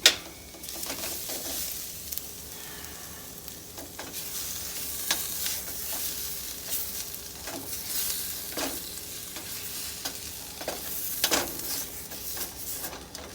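Onions and garlic sizzling in a hot pan while being stirred, with the spoon scraping and knocking against the pan every few seconds.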